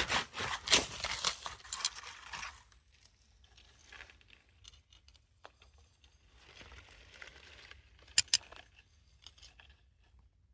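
Rustling, crackling handling noise with many small clicks for about two and a half seconds, a fainter rustle later, then two sharp clicks close together.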